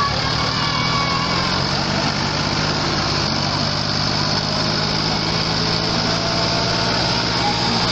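Tractor engine running at a steady pitch, without revving.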